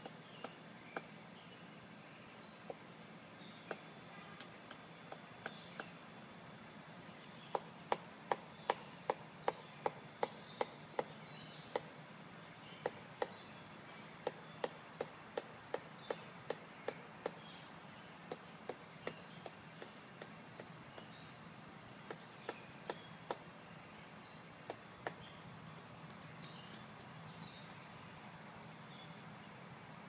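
Woodpecker pecking at a tree trunk: a series of sharp single knocks, scattered at first, then about two to three a second and loudest through the middle stretch, thinning out again towards the end.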